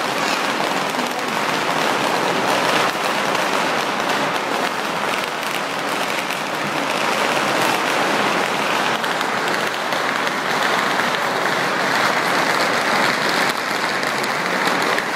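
Strings of Chinese firecrackers going off in a dense, continuous crackle.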